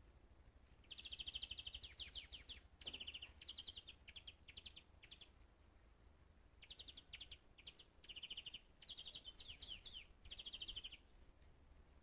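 A small songbird singing in two bouts of quick trilled phrases, each phrase a fast run of high notes, with a pause of about a second midway.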